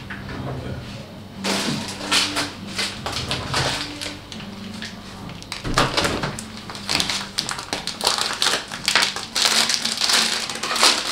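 Irregular tapping, clatter and rustling of hands handling things during kitchen prep, in quick uneven strokes that start about a second and a half in, over a steady low hum.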